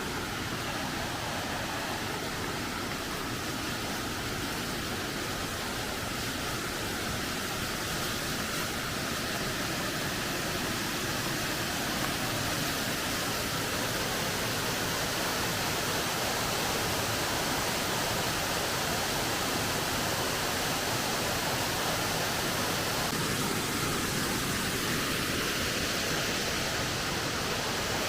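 Waterfall: a steady, even rush of falling water, growing slightly louder over the first half.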